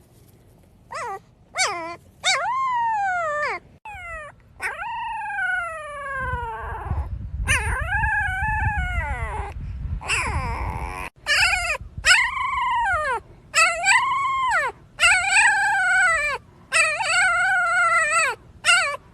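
A dog howling and whining in a long series of high, pitched calls. The first calls slide down in pitch; later ones rise and fall in quick succession, about one a second.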